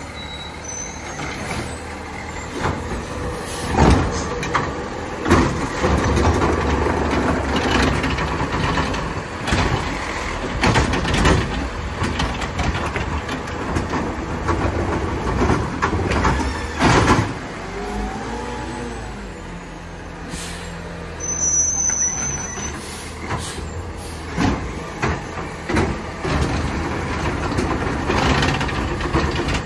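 McNeilus ZR automated side-loader garbage truck running on its route, its engine rumbling steadily under repeated sharp hisses and bangs typical of air brakes and the loading arm. A rising and falling tone comes in a little past halfway.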